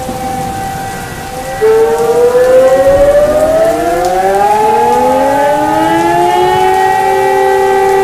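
Several civil-defence air raid sirens winding up together about a second and a half in. Their pitches rise and settle into a steady chord of tones over a siren tone already sounding, with a hiss of rain underneath.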